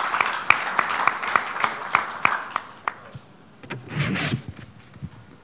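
Audience applauding after a lecture, with sharp individual claps; the clapping dies away about three seconds in. A brief noise follows about four seconds in.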